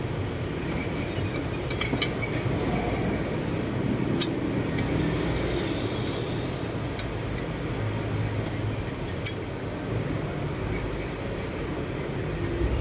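Scattered light metallic clinks of a hand-turned socket and extension working the bolts on a turbocharger housing, over a steady low background rumble.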